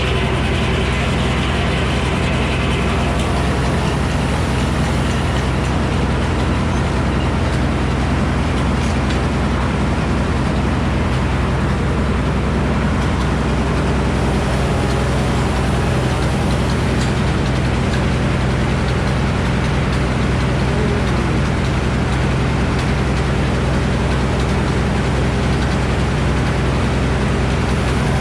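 Engine powering a Frick sawmill, running at a steady speed with an even, unbroken drone.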